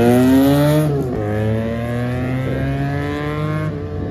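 QJ Motor SRK400's 400 cc parallel-twin engine through an aftermarket exhaust: revs climb, drop sharply about a second in, then hold steadier at a lower pitch.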